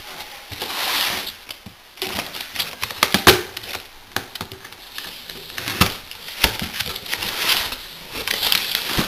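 Cardboard box being opened by hand: flaps scraping and rubbing against each other, with sharp taps and knocks, the loudest about three seconds in.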